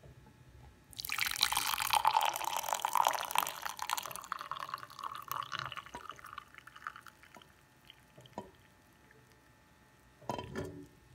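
Herbal tea poured from a saucepan into a glass mug: a splashing pour that starts about a second in and thins to a trickle and drips over the next few seconds, followed by a short knock near the end.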